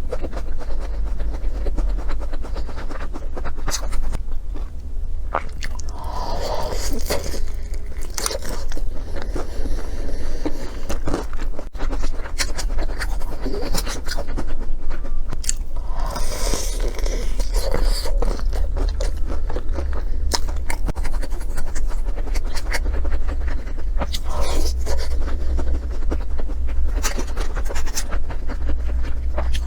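Close-miked eating: utensils scraping and clicking against dishes, with chewing and crunching, over a steady low hum.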